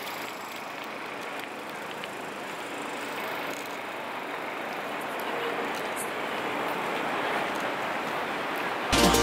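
Steady noise of a busy city street at night, with traffic and no single sound standing out. Music with a beat cuts in abruptly at the very end.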